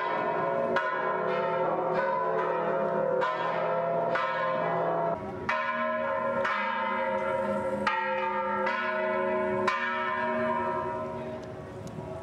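Church bells ringing: bells struck one after another, about one strike a second, their tones ringing on and overlapping, growing a little quieter near the end.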